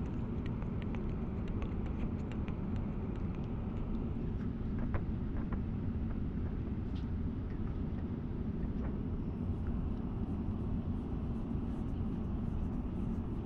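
Steady low rumble of airliner cabin noise, even throughout, with a few faint small clicks in the first few seconds.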